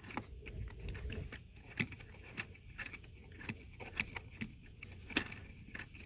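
Light, irregular metallic clicks from a socket wrench as a 15 mm seat-mounting bolt is unscrewed by hand.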